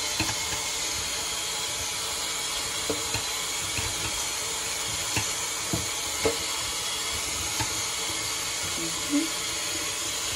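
Kitchen tap running steadily into a stainless steel sink, splashing over chopped callaloo leaves in a metal strainer as a hand rinses them. A few light knocks come through the splashing.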